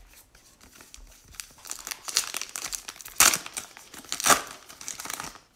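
A baseball card pack's wrapper being torn open by hand, crinkling throughout, with the loudest tears about two, three and four seconds in.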